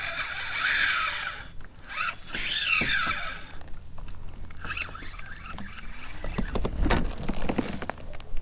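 Spinning reel's drag buzzing as a hooked red drum pulls line off, in two runs with the pitch sweeping up and down through the first few seconds. Later come scattered knocks and thumps, loudest about seven seconds in.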